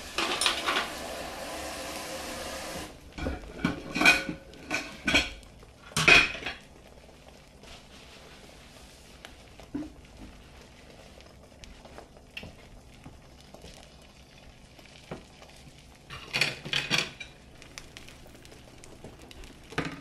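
Beaten eggs cooking in butter in a nonstick frying pan, a faint sizzle, with a steady hiss over the first three seconds that cuts off suddenly. Sharp clinks and clatters of utensils or dishes come from about three to six seconds in, and again briefly about sixteen seconds in.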